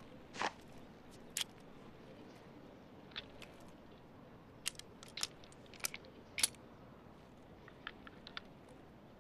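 A revolver being loaded by hand: cartridges taken from a belt pouch and slipped into the open cylinder, giving about ten short, sharp metallic clicks and taps at uneven intervals.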